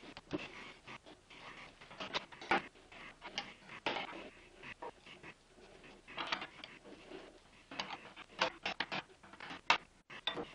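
A turning tool cutting the bottom of a wooden bowl held in a plywood donut jig on a wood lathe, heard as irregular scraping and clicking bursts. The bowl's broad, lopsided bottom cannot be centred, so it runs off-centre against the tool.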